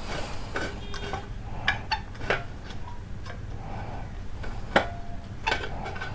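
Irregular sharp metallic clicks and ticks of a screwdriver working the screws out of a water pressure pump motor's front end cap.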